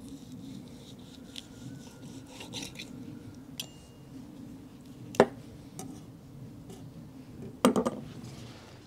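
Chef's knife sawing through the crisp skin and breast meat of a roast turkey on a wooden cutting board, with soft rasping strokes, then a sharp knock about five seconds in and a short clatter near the end as the knife is set down on the board.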